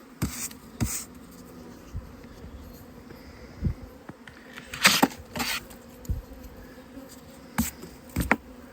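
Honeybees buzzing as they fly around their hives, a faint steady hum, with several short knocks and rustles of handling scattered through it.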